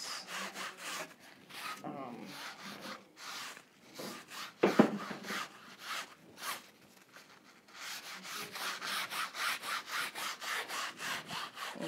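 A paper towel is rubbed in quick repeated strokes across a wet, freshly painted canvas, about three strokes a second, to dry the red underpainting. The strokes thin out in the middle, and there is one loud knock just under five seconds in.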